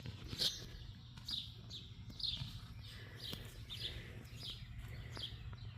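A songbird calling over and over: short chirps that fall in pitch, a little more than one a second.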